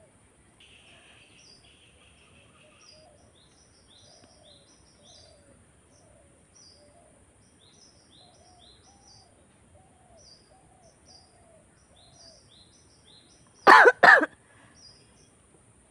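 Songbirds chirping throughout, short high chirps repeated again and again with some lower warbling calls. About 14 s in, a person lets out two loud, sharp bursts of breath in quick succession, coughs or choked sneeze attempts while tickling her nose.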